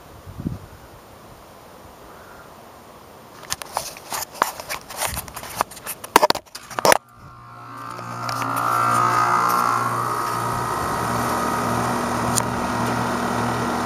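Knocks and rustles of the camera being handled, then about seven seconds in an outdoor air-conditioning condensing unit starts up. Its compressor hum and condenser fan rise over a couple of seconds to a steady run as the system comes back on after a refrigerant-line repair.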